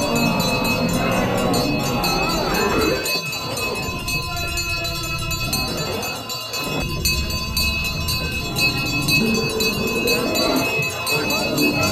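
Bells ringing steadily together with music. A wavering melody comes in over the first few seconds and again near the end.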